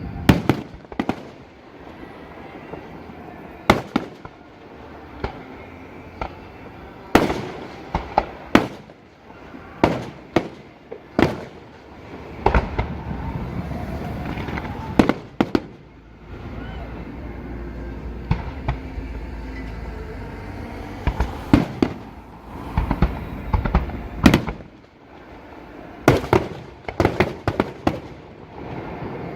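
Fireworks display: aerial shells bursting with sharp bangs at irregular intervals, a second or more apart at first and coming in quick clusters near the end.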